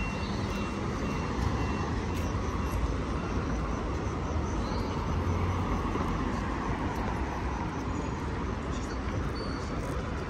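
City street traffic noise: a steady rumble of cars passing at an intersection, swelling a little midway as a vehicle goes by.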